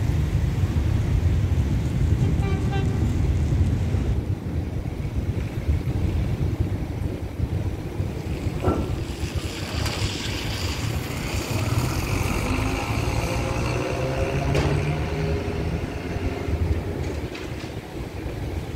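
Wind buffeting the microphone, a steady low rumble. Faint pitched sounds come and go over it, one briefly a few seconds in and others toward the middle.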